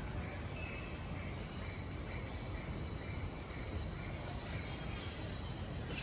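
Outdoor ambience: a steady background hiss with a few short, faint, high chirps, about half a second in, at two seconds, and near the end.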